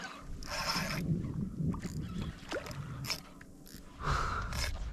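Water splashing and sloshing around a fishing kayak as a hooked snook thrashes at the surface, in short noisy bursts about half a second in and again near the end.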